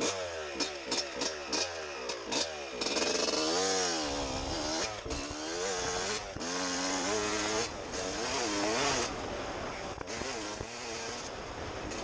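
Suzuki RM125 two-stroke single-cylinder dirt bike engine being ridden. Over the first three seconds there are quick throttle blips, each falling in pitch; then it holds on the throttle, revs rising and falling, with a few brief dips.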